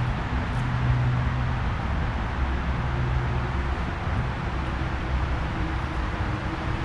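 Road traffic: a steady rush of cars going by on a highway, with a low engine hum in the first few seconds that fades out.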